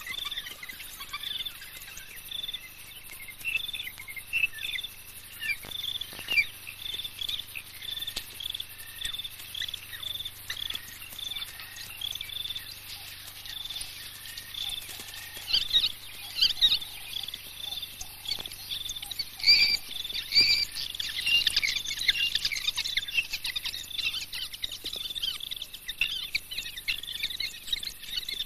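Night insects chirping in a steady, regular rhythm. About halfway through, a burst of high-pitched twittering calls from African wild dogs joins in for several seconds.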